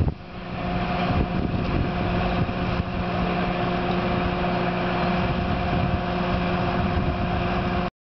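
Mobile crane's engine running steadily at a low idle, a steady hum that comes in about half a second in, while the crane holds a suspended steel bell-tower frame.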